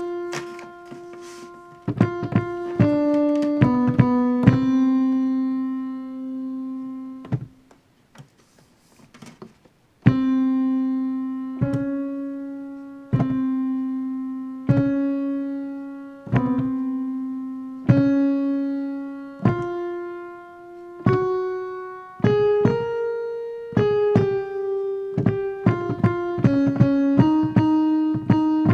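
Piano playing a single-note melody line, the alto voice part of a choral piece, one note at a time with each note ringing and fading. The line breaks off for a couple of seconds about a quarter of the way in, then resumes with longer held notes before moving faster near the end.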